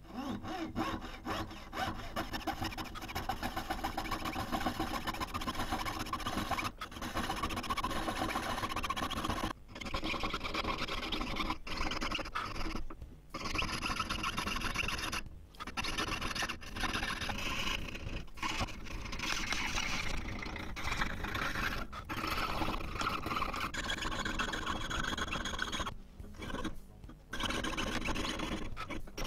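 Jeweller's piercing saw cutting through silver sheet: quick back-and-forth rasping saw strokes, stopping briefly several times along the way.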